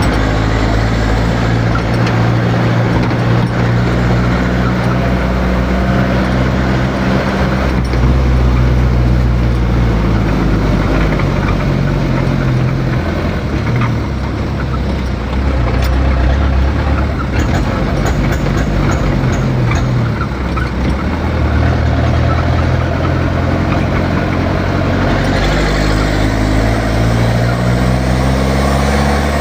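A motor vehicle's engine running with road noise, the engine note shifting up and down as the speed changes and rising near the end.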